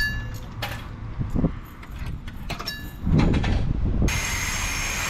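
Self-serve car wash control panel giving two short electronic beeps amid clicks and handling knocks, then a little after four seconds the coin-op pressure washer suddenly starts up, set to bug remover: a steady spray hiss with a thin high whine in it.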